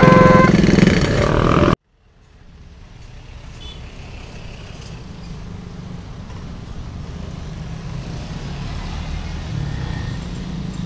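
Railroad level-crossing warning alarm sounding a stepped pattern of steady electronic tones over idling motorcycle engines, cut off suddenly under two seconds in. Then motorcycles and cars pass on the road, fading up into a steady engine rumble.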